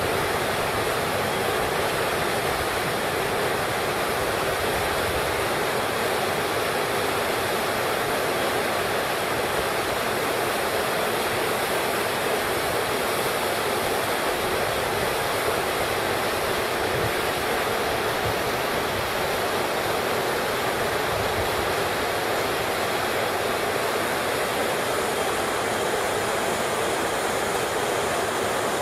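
Waterfall pouring over rocks into a pool: a steady, unbroken rush of falling water.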